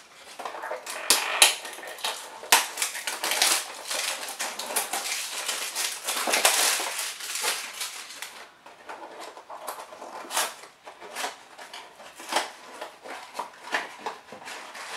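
Cardboard and plastic packaging rustling and crinkling as a small blind box is handled and opened, with many sharp clicks and taps. The crinkling is dense for the first half, then thins to scattered clicks.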